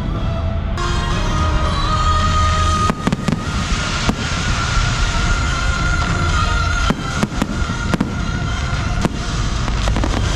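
Show fireworks going off over loud music: a continuous low rumble of bursts with several sharp cracks scattered through, while sustained musical tones play.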